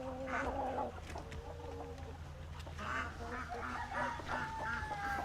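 Domestic poultry calling: drawn-out held calls in the first two seconds, then a run of short calls leading into one long held call near the end.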